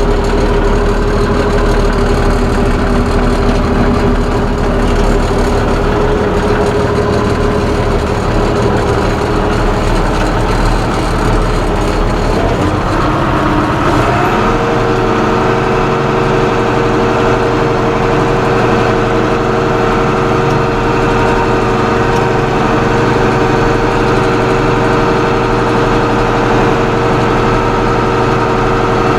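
Case International 956XL tractor's six-cylinder diesel engine running steadily. About halfway through, the revs rise and then hold at the higher speed. It lacks its usual exhaust whistle because of a cracked exhaust manifold.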